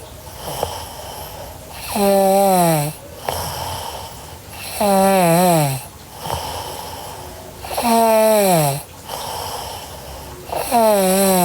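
A sleeping girl snoring in a steady rhythm, four snores about three seconds apart. Each snore is a hum just under a second long that slides down in pitch, with softer breathy in-breaths between.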